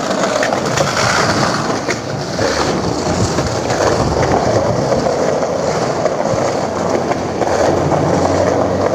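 Skateboard wheels rolling over pavement: a steady rumble with small clicks all through.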